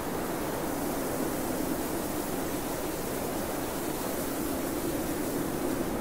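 Steady wind noise: an even rushing hiss with a low hollow tone in it that swells and eases slightly.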